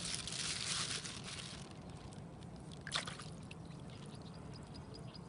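Water splashing and pouring for about the first second and a half, then quieter, with one short sharp sound about three seconds in.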